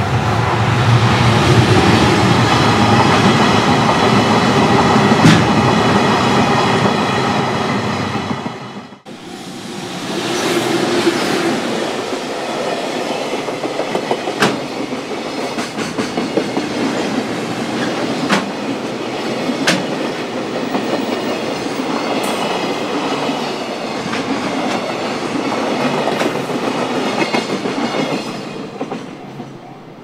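Freight trains of container wagons, hauled by JR Freight EF210 electric locomotives, running over a level crossing: a steady rumble with the clickety-clack of wheels over rail joints and sharp clicks every second or two. The sound breaks off suddenly about nine seconds in and a second freight train passes, fading near the end as its last wagons clear the crossing, with the crossing bell ringing.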